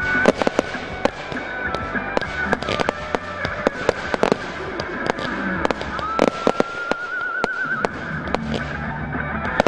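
Fireworks finale: aerial shells bursting overhead in many sharp bangs in quick succession, without let-up.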